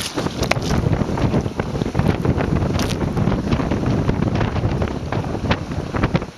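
Heavy wind buffeting the microphone, with water rushing and splashing around a sailboat heeling in a strong breeze. Many short sharp cracks and splashes stand out throughout.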